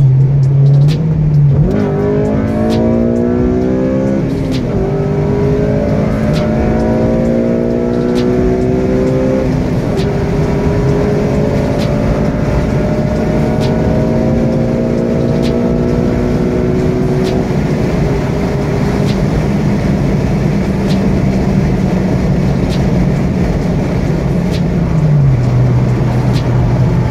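Car engine and road noise heard from inside the cabin as the car accelerates onto a freeway. The engine note climbs and drops back several times in the first ten seconds, then holds steady at cruising speed over the hiss of the tyres, and falls in pitch near the end.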